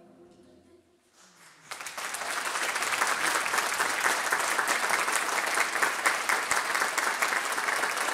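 The last held chord of the choir and band fades out within the first second. About a second and a half in, the audience starts applauding, quickly growing to loud, steady clapping that keeps on.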